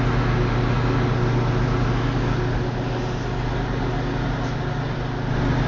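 Microwave oven running: a steady electrical hum with the even rush of its cooling fan.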